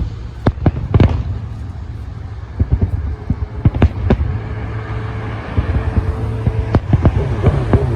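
Fireworks going off: sharp bangs, singly and in quick clusters, about half a second in, around a second in, around three to four seconds in and again near the end, over a steady low rumble.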